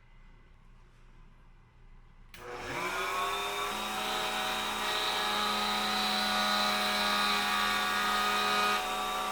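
An electric power tool's motor switches on about two seconds in, spins up to speed with a rising whine, then runs steadily.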